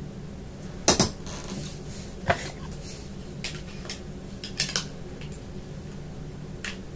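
Hard objects being handled: half a dozen separate sharp clicks and knocks, the loudest about a second in, over a low steady hum.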